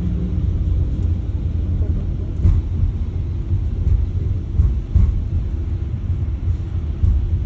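Steady low rumble of a moving road vehicle, with a few brief bumps and jolts.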